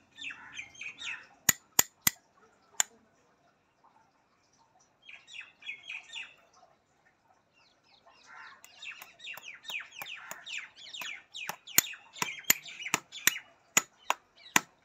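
Small hammer tapping the nails of a new horseshoe into a horse's hoof: four sharp taps a couple of seconds in, then a steady run of about three taps a second near the end. Birds chirp busily throughout.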